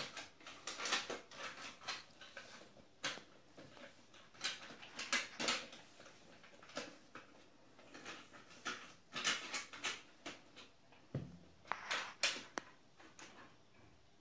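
Small plastic pieces of a toy vanity set clicking and clattering as a child handles them, in irregular clusters of short clicks.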